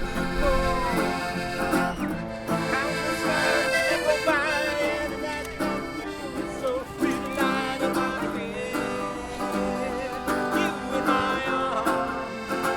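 Folk or country-style music with accordion and guitar.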